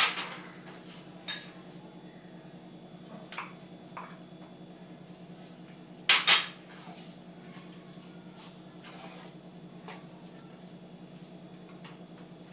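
Bowls clinking on a tray and a wooden spatula knocking against a bowl and a wok as ingredients are tipped in. There is a handful of short sharp clatters, the loudest pair about six seconds in, over a steady low hum.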